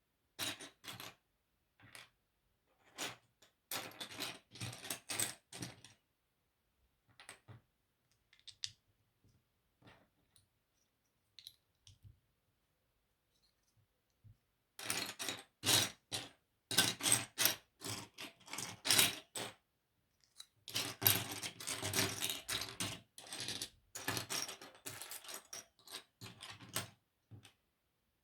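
Plastic LEGO pieces clattering and clicking as they are handled and sorted, in short flurries of rapid clicks with pauses between. The busiest clattering comes in the second half.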